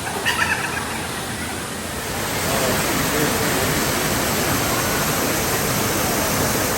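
Steady rushing of falling water from an indoor waterfall, growing louder about two seconds in.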